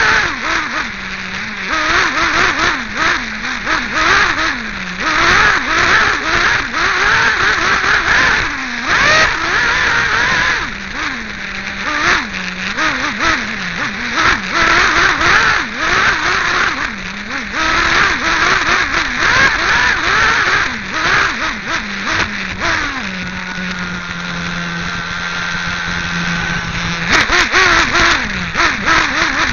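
Team Associated RC8b nitro buggy's small glow-fuel engine revving up and down again and again as the car is driven around the track, heard close up from a camera mounted beside the engine. For a few seconds late on, the revs hold at a steadier, lower hum before climbing again.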